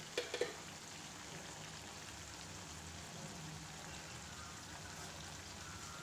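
White pomfret pieces in masala and curry leaves shallow-frying in hot oil in a pan, a steady low sizzle. Two brief sharp pops in the first half second.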